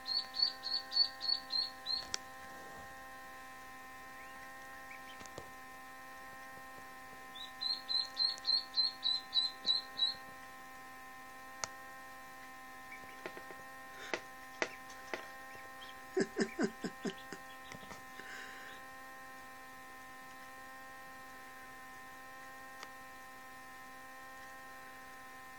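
Hatching Indian Runner/Khaki Campbell cross duckling peeping in two short runs of high, evenly spaced peeps, about four a second, over the steady electrical hum of an incubator. A few soft clicks and a brief lower, rapid pulsing come about two-thirds of the way through.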